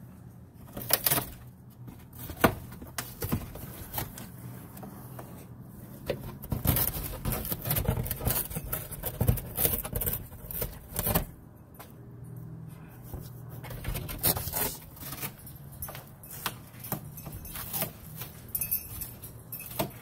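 A galah cockatoo chewing, scratching and tearing at a cardboard box with its beak. The box gives dry, irregular crackles and scrapes that come in busy clusters, heard from inside the box.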